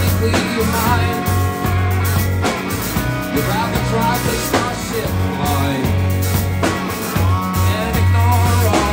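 Live rock band playing: electric guitar close up, with a heavy bass line, drums and singing.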